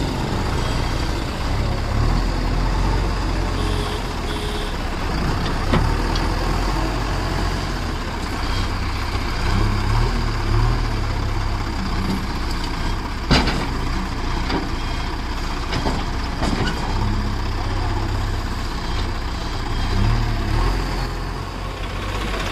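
Four-cylinder diesel engine of a JCB 3DX backhoe loader running under hydraulic load as it lifts its loader bucket, the engine note swelling and easing with the work. A sharp knock about thirteen seconds in.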